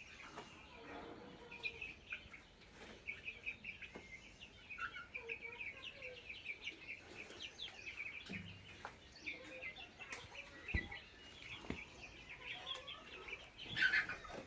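Chickens calling: a continuous chatter of quick, high peeps, with a louder call near the end.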